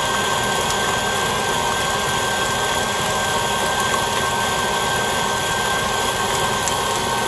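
KitchenAid Artisan stand mixer running steadily, its flat beater whipping a wet butter, sugar and egg batter, with a constant motor whine.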